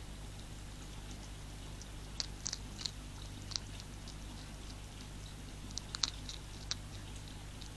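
European hedgehog crunching food from a feeding tray: irregular sharp crunches, a cluster of them a couple of seconds in and another about six seconds in.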